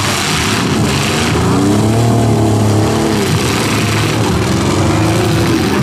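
Demolition derby cars' engines running loud, several at once, revving twice with the pitch rising and falling, once about a second and a half in and again near the end.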